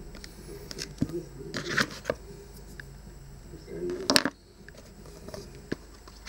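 Rustling and light tapping of iPhone accessory packaging handled and set down on a wooden table, with a few short clicks and a louder rustle about four seconds in.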